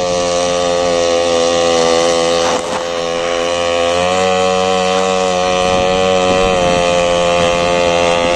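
Small engine of a model fishing boat running steadily at high revs while towing a basket boat, its pitch holding nearly constant with a brief dip about two and a half seconds in.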